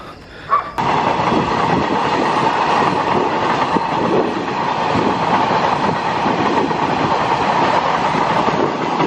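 Freight train of tank wagons passing close by, its steel wheels running over the rails in a steady, loud rumble that starts abruptly about a second in.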